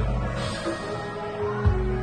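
Instrumental interlude of a pop-rock song with no vocals: sustained synth and guitar tones over a slow beat, with two heavy bass-drum hits, one at the start and another about a second and a half later.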